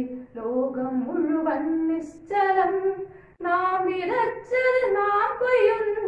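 A boy singing a Malayalam poem solo, without accompaniment, in long held notes that slide between pitches with short breaks for breath.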